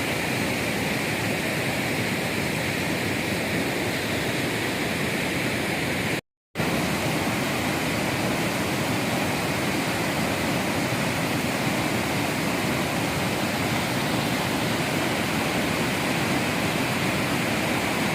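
Steady rush of fast-flowing water. The sound cuts out completely for a moment about six seconds in, then resumes.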